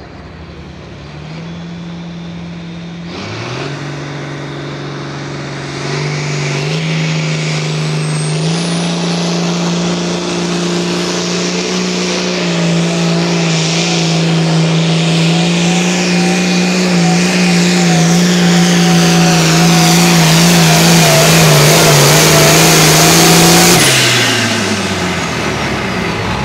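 Pulling tractor's engine at full throttle during a pull: the revs climb in steps over the first several seconds, then hold high and get steadily louder for most of the run. Near the end the engine drops off sharply as the pull ends.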